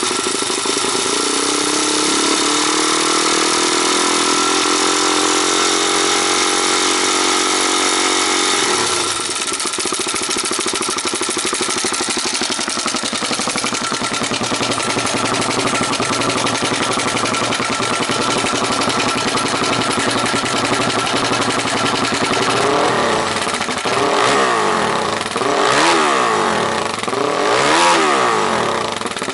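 Suzuki DR-Z400SM single-cylinder four-stroke engine with an aftermarket silencer, running at a fast idle whose pitch slowly climbs, then dropping to a lower steady idle about nine seconds in. Near the end the throttle is blipped a few times, each rev rising and falling quickly.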